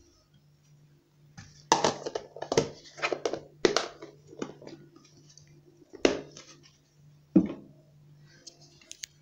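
Irregular clicks and knocks of hands handling things at an open front-loading washing machine drum, in a cluster over a few seconds and twice more later, over a faint steady low hum.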